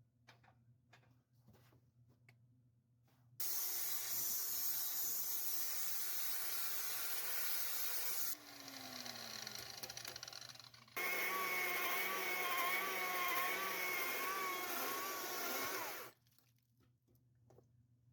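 A power tool working wood, heard in abruptly cut stretches: loud rushing noise for about five seconds, a quieter stretch, then another loud stretch with a wavering whine. It stops suddenly about two seconds before the end.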